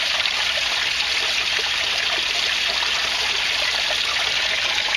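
Steady rush of running water: pumped aquaponics water pouring and trickling into a tank, which oxygenates it.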